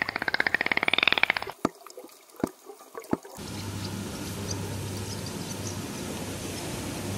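Dolphin sounds: a rapid buzz of clicks with a whistle rising and falling over it, stopping about a second and a half in, followed by a few sharp single clicks. Then, from a little past three seconds, a steady hiss with a low hum.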